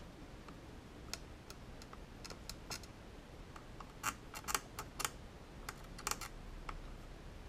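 Irregular small clicks and ticks as an old electrolytic filter capacitor is rocked and pulled by hand on a powered subwoofer's amplifier board, the loudest cluster coming about four to five seconds in and another about a second later.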